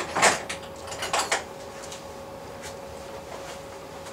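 An ATV battery being picked up and set in place: a few knocks and scrapes in the first second and a half, the loudest about a quarter second in. After that only a faint steady hum remains.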